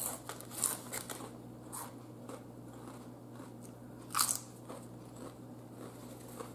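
Potato chips (Lay's Classic) being bitten and chewed: several short crunches, with the loudest crunch of a fresh bite about four seconds in.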